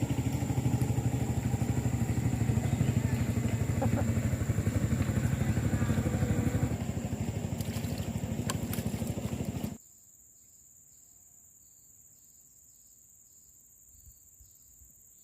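A small engine running steadily with a fast, even pulse, which cuts off abruptly about ten seconds in, leaving near quiet with a faint high whine.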